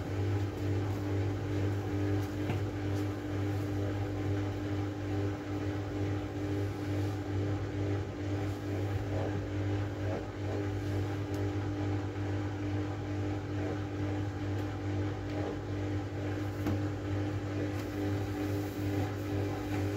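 Miele W433S front-loading washing machine running with a steady motor hum, its drum turning at a constant speed with no rise or fall in pitch.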